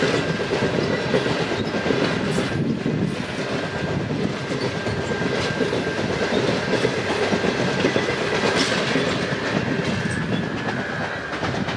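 Great Southern passenger train carriages rolling past close by, a steady rumble with the wheels clicking over rail joints.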